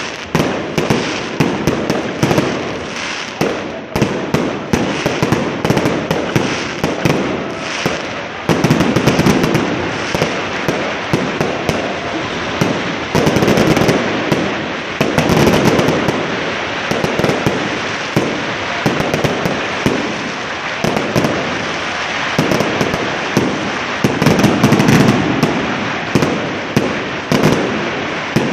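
Fireworks and firecrackers going off continuously, a dense crackle of many sharp bangs over a rolling rumble that swells several times.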